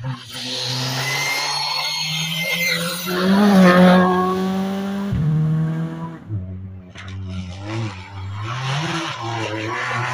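Rally cars at speed on a tarmac stage. One passes close at full throttle, loudest about three and a half seconds in. After a cut, a Peugeot 208 rally car approaches, its engine note rising and falling through gear changes and lifts for the bend.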